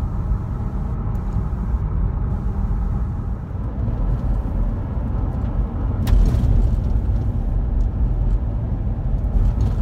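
Road and engine rumble of a car driving, heard from inside the cabin. There is a single sharp click about six seconds in.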